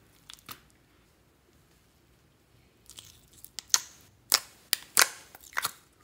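Fingers pressing and squeezing soft pink slime in a plastic tub, with a quick run of sharp, wet squelches and pops starting about three seconds in; two faint clicks come near the start.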